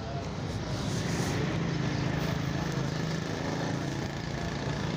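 Street ambience: a vehicle engine running steadily with people's voices in the background.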